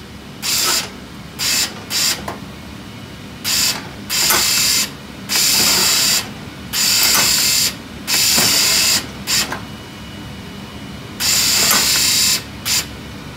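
Warn RT25 ATV winch motor jogged in about eleven short runs, each from a fraction of a second to about a second, over a steady low hum.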